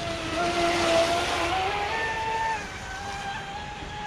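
Traxxas Spartan RC speed boat's 6S brushless electric motor and propeller whining at speed, over a hiss of water spray. The whine steps up in pitch past a second in and drops back about halfway through, while the hiss is strongest near the first second.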